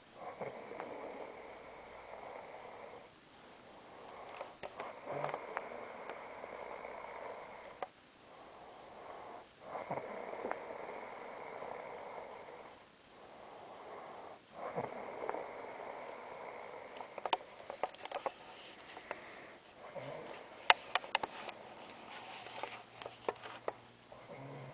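A woman snoring in her sleep: five long snores, each about three seconds, with short pauses between breaths. A few sharp clicks come near the end.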